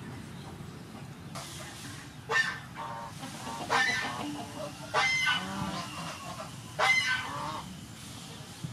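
Poultry calling: four loud calls spaced a second or two apart, over a faint low hum.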